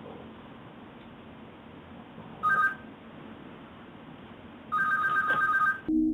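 An electronic telephone ringer sounding twice: a short two-tone trill about two and a half seconds in, then a longer trilling ring of just over a second starting near five seconds in. Just before the end it cuts to soft music.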